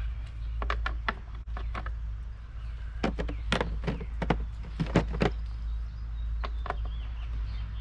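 Irregular clicks and knocks of a lawn mower's engine parts being handled as its top cover is worked off, over a steady low rumble.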